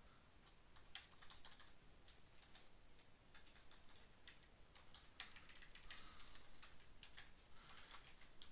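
Faint computer keyboard typing: scattered single keystrokes, coming closer together from about five seconds in.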